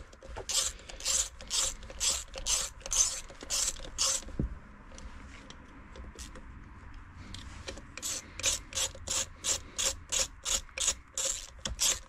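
Hand socket ratchet clicking in quick back-and-forth strokes as the crankcase bolts of a Honda AF05 50cc two-stroke scooter engine are snugged down. Two runs of clicking, the second faster, with a pause of about three seconds between them.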